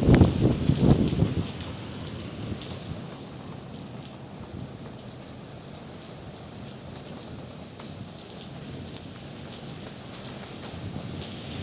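Heavy rain falling steadily, a hiss with scattered sharp drop ticks. A low rumble of thunder dies away about a second and a half in.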